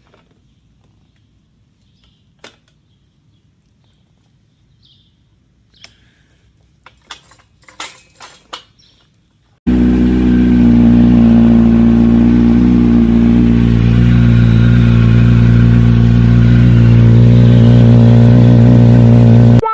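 A few light clicks and taps, then, about ten seconds in, a Kawasaki Z900's inline-four engine is running steadily at idle with a smooth even note, freshly refilled with oil after an oil change.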